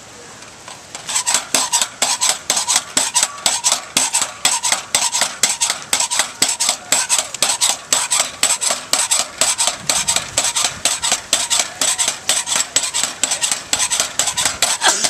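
Pogo stick bouncing steadily, its metal spring and frame clanking and rattling several times a second, starting about a second in.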